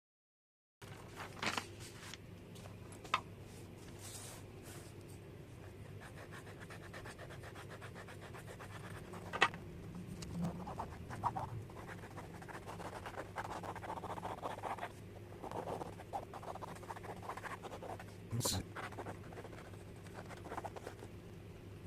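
Irregular scratching and rubbing of handwork on a wallet's surface, with a few sharp clicks and knocks.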